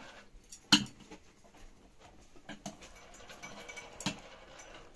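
Metal utensils clinking against an aluminium cooking pot while greens are stirred and the pot is gripped by its rim: one sharp clank about three-quarters of a second in, then a few softer clinks and another clank near the end.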